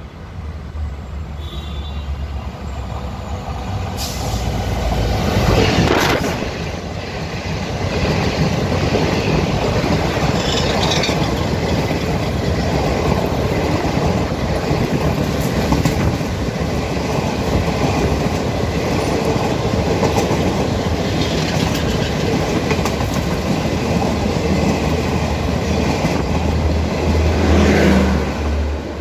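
An EMD WDP-4B diesel-electric locomotive, with its two-stroke V16 EMD 710 engine, approaches at high speed, growing louder until it passes close by about six seconds in. The express coaches then rush past, with steady rolling noise and the clatter of wheels over the rails for the rest of the time.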